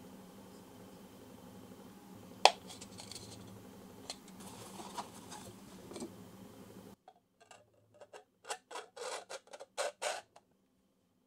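Handling of 3D-printed plastic lens tubes: one sharp click, soft rubbing of a cleaning cloth, then a quick run of short scraping rubs as the printed tubes are slid together.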